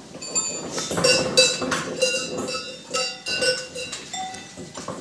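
A small bell on a young farm animal's neck collar clinking over and over as the animal moves its head while feeding, about two strikes a second, each leaving a short metallic ring.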